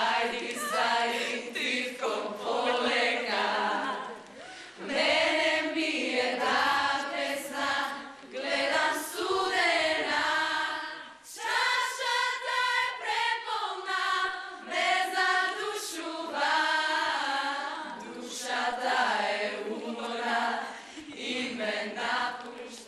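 A large group of young singers, mostly women, singing a song together in chorus, with short breaks between phrases.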